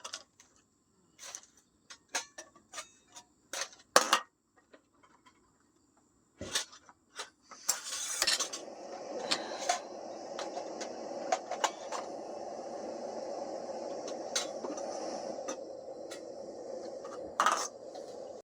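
Metal cookware and utensils clinking and knocking in a run of separate strikes. About eight seconds in, a steady hiss starts and keeps going.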